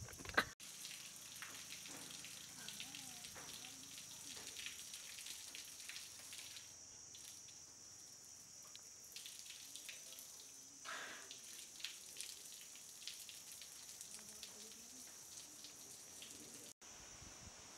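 Faint water dripping and splashing on a wet concrete floor, many small scattered ticks over a steady high hiss, with a sharp click just after the start.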